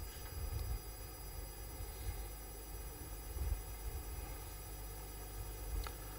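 Quiet room tone with a steady electrical hum and a few faint low bumps.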